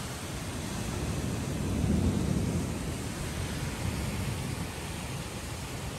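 Heavy hail and rain falling steadily, with a low rumble that swells about two seconds in.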